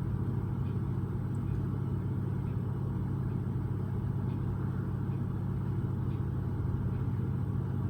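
A steady low rumble that stays even throughout, with no distinct events.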